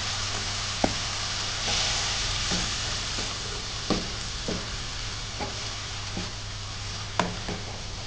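Onion and tomato masala sizzling in a non-stick wok while a wooden spoon stirs it, the spoon knocking against the pan at irregular intervals, roughly once a second.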